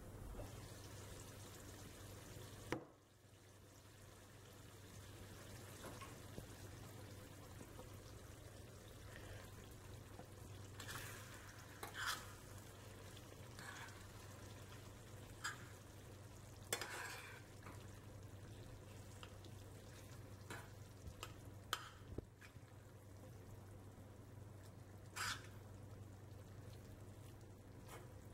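Spoon stirring a tomato tadka in a stainless steel pan, with scattered short scrapes of the spoon against the pan as it fries quietly, over a steady low hum. A single clink sounds near the start.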